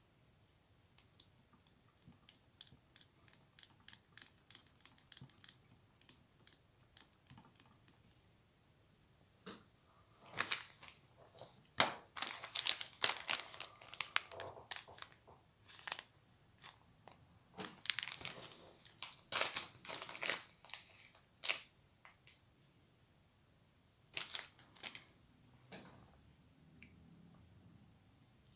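Crinkling and crackling in irregular bursts as fly-tying material is handled close to the microphone, after a run of faint, evenly spaced ticks in the first few seconds.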